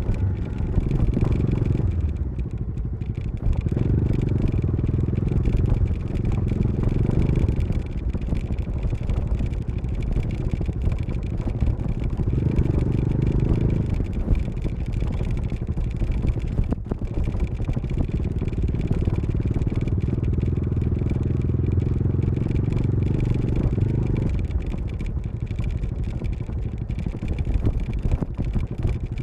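Bajaj Dominar 400's single-cylinder engine and exhaust running on the move, the throttle opening and closing so the deep exhaust note swells and eases several times.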